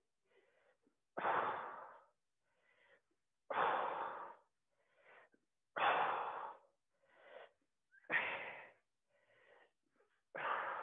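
A woman breathing hard with effort through her mouth on each repetition of an exercise: five forceful exhales about two seconds apart, each sharp at the start and trailing off, with fainter inhales between.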